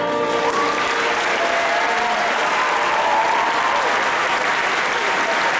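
Audience applauding steadily, with a few voices calling out over the clapping; the last sung note of the choir fades out about half a second in.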